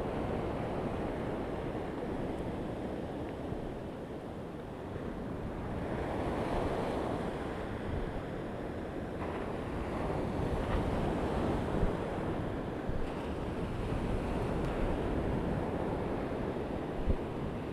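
Shallow surf washing up a beach, the wash swelling and falling away every few seconds, with wind on the microphone. A couple of brief knocks stand out near the end.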